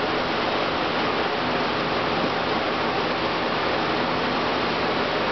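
Steady, even rushing hiss with a faint low hum beneath it, the background noise of the room; no distinct growls, thumps or tugging sounds stand out from it.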